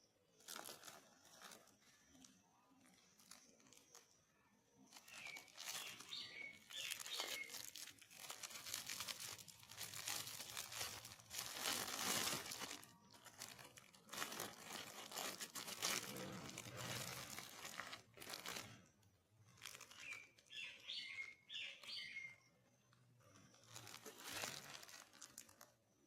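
Packaging being torn open and crumpled by hand during an unboxing: irregular rustling, tearing and crinkling in bursts, busiest and loudest through the middle.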